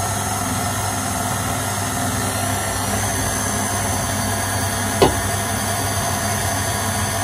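KitchenAid Artisan tilt-head stand mixer running steadily, its motor humming as the wire whisk beats condensed milk in the stainless steel bowl. A single brief knock sounds about five seconds in.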